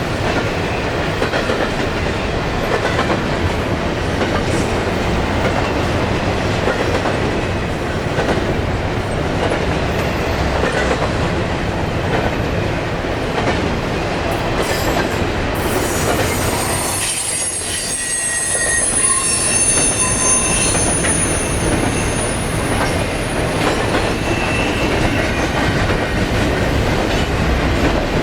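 A train's cars rolling past on the rails, a loud steady rumble and clatter. About halfway through, high thin wheel squeal sets in and holds for several seconds.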